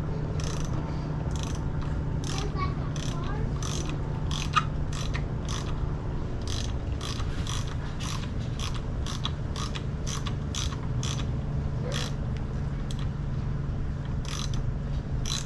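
Socket ratchet clicking in short, steady runs of about two to three clicks a second as a new spark plug is turned in and snugged up by hand, without a torque wrench. A steady low hum runs underneath.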